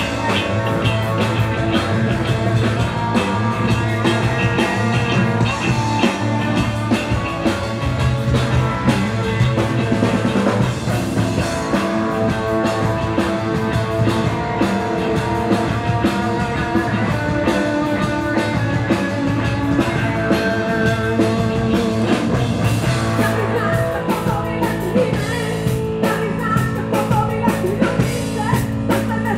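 Live rock band playing: electric guitar, bass guitar and drum kit, with a sung lead vocal.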